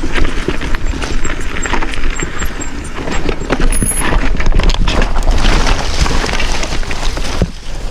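Mountain bike clattering and rattling down a rocky, rooty trail: tyres knocking over rock, the bike's parts rattling, wind rumbling on the microphone.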